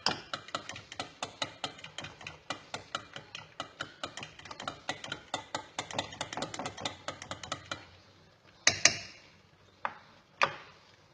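Egg and lemon mixture being beaten by hand in a bowl, the utensil clicking against the bowl about five or six times a second. The beating stops about eight seconds in, followed by two loud knocks and then two lighter taps.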